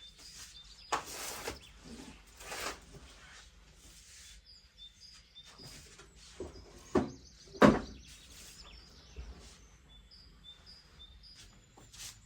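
Small household handling noises: two short rustling swishes in the first few seconds, then two dull thuds a little over halfway through, the second the loudest. Short high bird chirps repeat faintly in the background.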